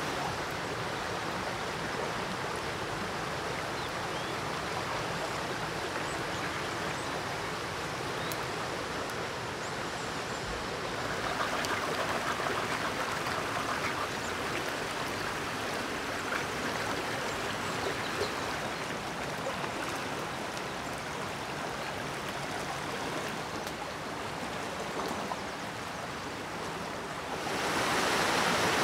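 Steady rushing of a small stream over rocks, louder for the last second or so, with a few faint crackles from a stick campfire.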